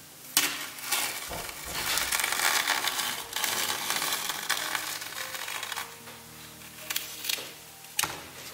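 Masking tape being peeled off the edge of a painted canvas: a long ripping peel lasting about five seconds, followed by a few light knocks and clicks near the end.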